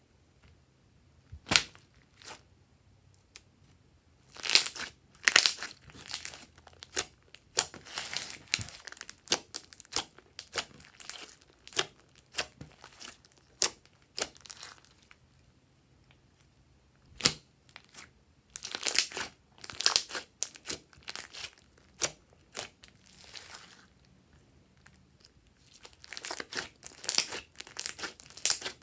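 Hands pressing, pulling and stretching a thick, sticky slime, giving irregular crackles and pops in busy bursts with short quiet pauses between them.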